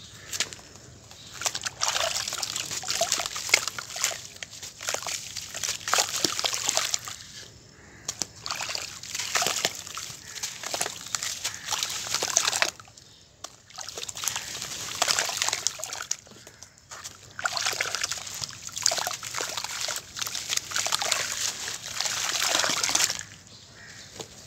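Dry sand-cement crumbled by hand and dropped into a bucket of watery cement slurry: gritty crumbling with sloshing, splashing and trickling. It comes in four bouts separated by short pauses.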